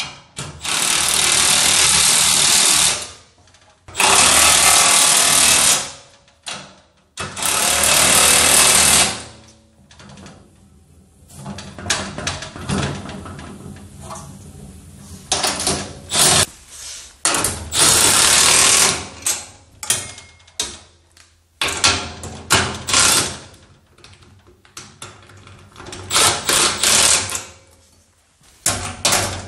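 Cordless impact driver with a socket hammering bolts tight on a steel wheelbarrow frame, in three loud runs of two to three seconds each. Then come quieter clinks and clatter of steel parts and tools being handled, broken by several shorter bursts from the driver.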